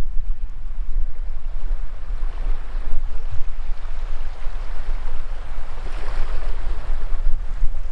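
Shallow sea waves washing up over sand at the water's edge, a continuous wash that swells about six seconds in, with wind buffeting the microphone as a low rumble underneath.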